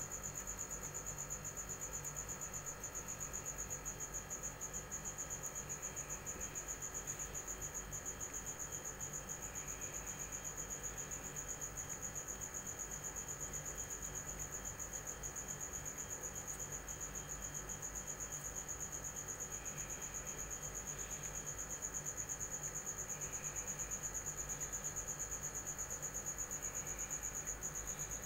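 A steady, high-pitched insect trill that keeps going without a break.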